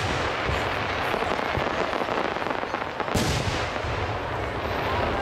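Aerial fireworks shells bursting: dense crackling all through, with one sharp, loud boom about three seconds in over a low rumble.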